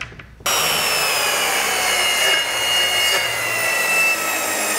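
Plunge-cut track saw cutting a wooden board to length along its guide rail: a steady, loud saw whine that starts suddenly about half a second in.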